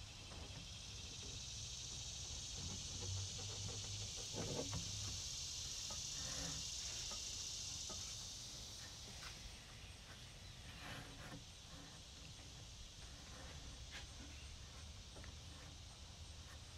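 Steady high-pitched insect buzz that fades out about halfway through, over a faint low hum, with a few faint scattered clicks.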